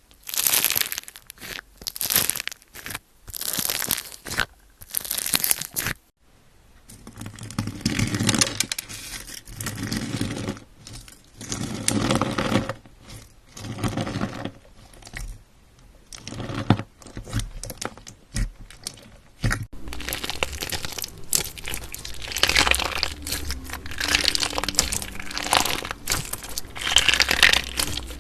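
Slime being pressed and squeezed by hand, crackling and crunching in repeated bursts about once a second. The texture of the sound changes twice: crisp, bright crackles first, then lower, squishier presses, then denser crackling.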